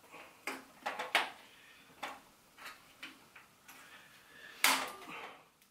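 Stamped-metal motherboard I/O shield being pressed and snapped into the rear cutout of a steel PC case: a run of light clicks and taps, the loudest near the end.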